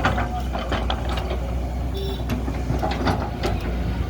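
Excavator's diesel engine running steadily, with scattered sharp clanks and knocks.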